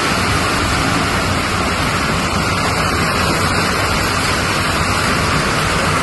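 Loud, steady rushing of a mudflow: muddy water and debris streaming fast over a mountain road after heavy rain and hail.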